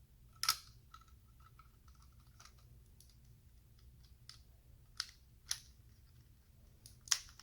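LEGO Technic plastic pieces clicking and knocking as they are handled and fitted into the model: a few sharp clicks, the loudest about half a second in, two more around the middle and one near the end, with faint ticks between.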